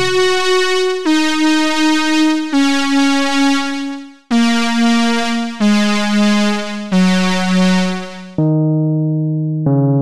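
Electronic keyboard melody of single held notes, one every second or so, stepping downward in pitch with a bright tone; about eight seconds in the notes drop lower and turn duller.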